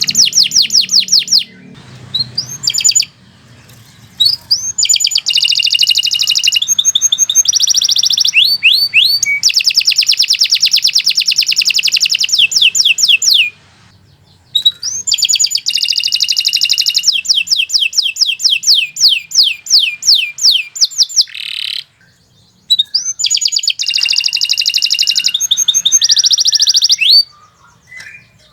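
Domestic canary singing long, loud phrases of rapid repeated trilled notes, each phrase running several seconds, with brief pauses between phrases. The song stops near the end, leaving only a few faint chirps.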